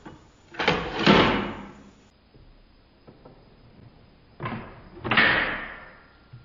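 A cassette being loaded into a cassette deck's cassette holder: two plastic-and-metal clunks about four seconds apart, each a light click followed by a louder clack that dies away over about a second.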